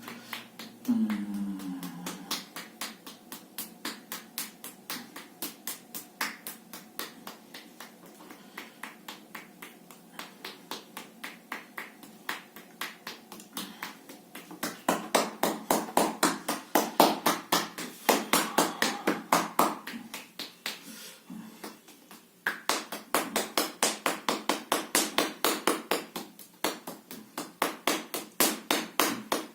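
Rapid, rhythmic percussive slapping of a hand against the body in self-massage, about four strikes a second. The strikes grow louder and faster from about halfway, with a short pause a little past two-thirds of the way through.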